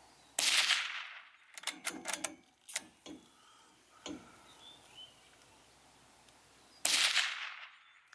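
Shotgun fired twice, about six and a half seconds apart, each shot echoing out. Between the shots come several sharp metallic clicks.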